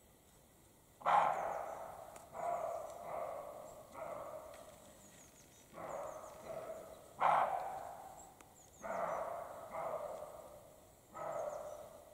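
European roe deer barking: a series of about ten dog-like barks, roughly one a second. Each bark starts sharply and fades, and the loudest opens each run.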